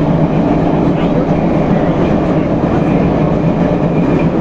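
81-717/714 metro train running along the track: a loud, steady rumble with a faint high squeal now and then.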